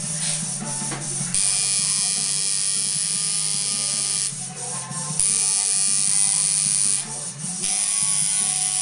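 Electric tattoo machine buzzing as its needle works the skin, starting about a second in and stopping briefly twice before running on.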